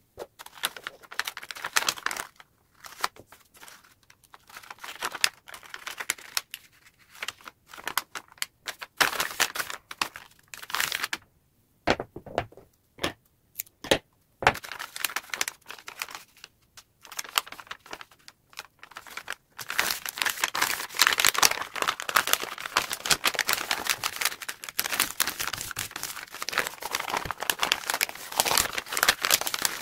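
Kraft wrapping paper rustling and crinkling as it is handled and folded, with tape being peeled and stuck. Short scattered rustles and clicks give way about two-thirds in to dense, continuous crinkling.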